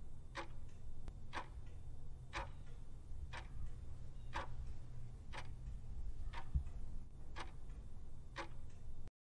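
Clock-ticking sound effect, one tick a second over a low steady hum, counting down the ten seconds allowed to answer a puzzle. It cuts off suddenly near the end.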